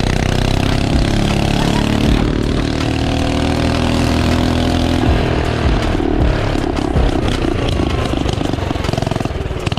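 Mini bike's small single-cylinder engine pulling hard under acceleration, its pitch climbing over the first five seconds or so, then running steadily at speed.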